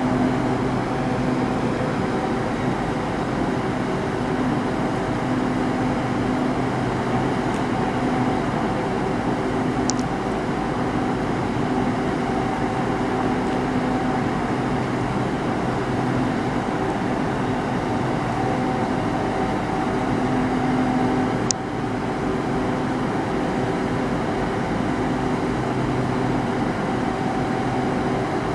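Diesel train engine idling steadily with an even, humming drone, with a single sharp click about three-quarters of the way through, after which the sound drops a little.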